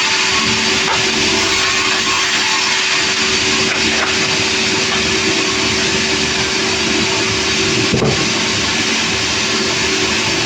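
Sawmill machinery running steadily, a loud even mechanical noise with a constant low hum, and a single short knock about eight seconds in.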